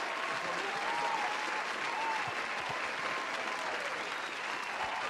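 Crowd applause: steady massed clapping with faint cheering voices above it.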